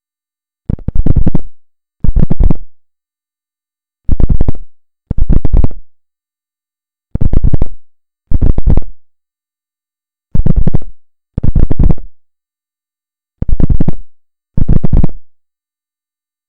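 Buzzing electronic signal from a refrigerator, heard as ten short buzzes, each under a second long, in five pairs that repeat about every three seconds.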